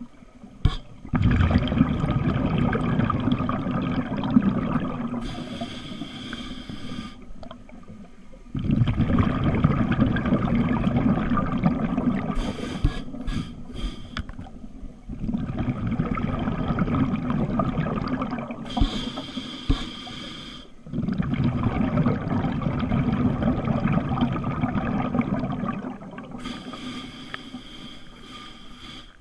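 Scuba diver breathing through a regulator, heard underwater: a hissing inhale through the demand valve alternates with a longer, louder rush of exhaled bubbles, about four breaths in all.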